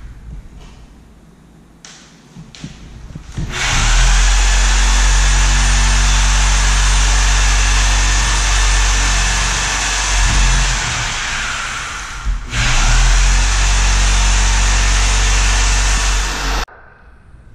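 Corded power saw running its blade along a door jamb to cut through any nails or screws holding the door frame. It starts about three and a half seconds in, dips briefly about twelve seconds in, then runs on and cuts off suddenly near the end.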